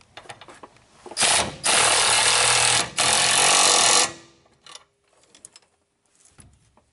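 Cordless impact wrench hammering nuts tight onto frame bolts, in three bursts from about one second in until about four seconds, with a short pause between each. A few faint clicks of handling follow.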